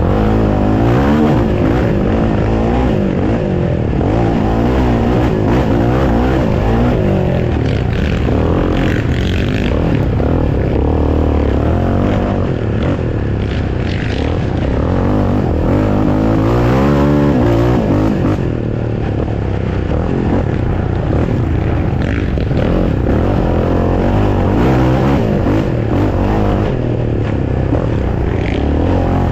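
Yamaha off-road motorcycle engine under race load on a rough dirt trail, revs rising and falling over and over as the throttle opens and shuts, heard close up from the bike itself.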